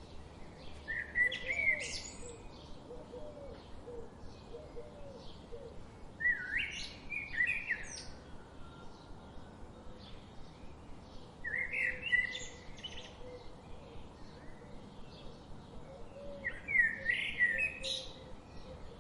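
Songbirds singing: one bird repeats a short, loud song phrase about every five seconds, four times, over a steady background of fainter chirps from other birds.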